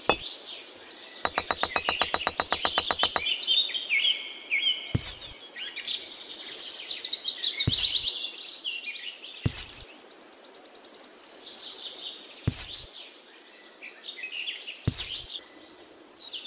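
Birdsong: many high chirps and twittering calls, with a fast even rattle for about two seconds starting a second in. Sharp single taps come every two to three seconds.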